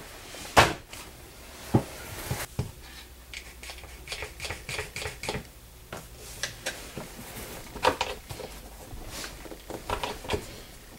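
A one-handed bar clamp being set over a metal leather stamp and squeezed tight, with clicking from its trigger and knocks as it is handled on the bench. A sharp knock about half a second in is the loudest, followed by irregular runs of quick clicks.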